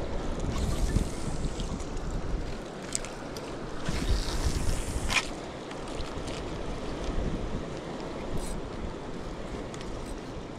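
Wind buffeting the microphone over the wash of the sea around a small fishing boat, a steady low rumble with one louder rush of noise about four seconds in.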